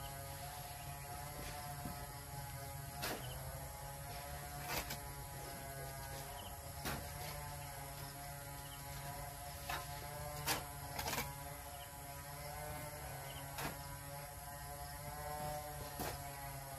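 A steady motor hum, with sharp clicks or knocks every second or two.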